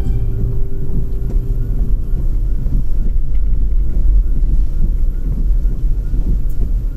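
Car driving on a rain-wet road: a steady low rumble of engine and tyre noise.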